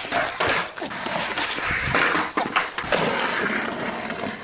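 Skateboard jumped off a concrete ledge: sharp board knocks, the first about half a second in, then wheels rolling over brick paving with a rough, rattling noise and a few more knocks.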